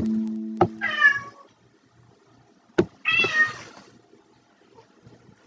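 A cat meows twice, about two seconds apart, each call falling in pitch. Near the start a held musical note fades out, and sharp clicks come just before each meow.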